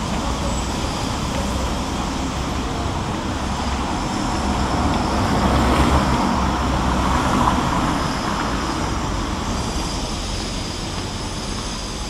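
Street traffic noise with a low engine rumble, swelling as a vehicle passes about five to eight seconds in, then easing off.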